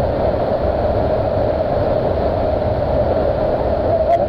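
Waterfall pouring down at close range: a loud, steady rush of falling water.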